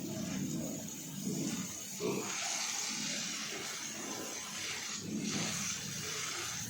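Water spraying from a hose with a steady hiss that starts suddenly about two seconds in and dips briefly near the end, while pigs grunt underneath.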